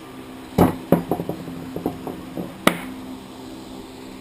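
A run of sharp clicks and knocks from the metal parts of a dismantled Trigg A200 brake caliper being handled and set down on a wooden workbench. There is a loud knock about half a second in, then a quick patter of smaller clicks, and another sharp click after about two and a half seconds.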